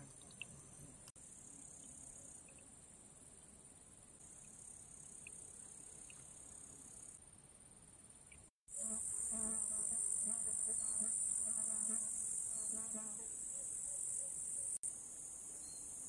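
Insects chirring in the grass, a steady high-pitched buzz. It drops out for a moment about halfway through and comes back louder, with a low wavering hum under it for about four seconds.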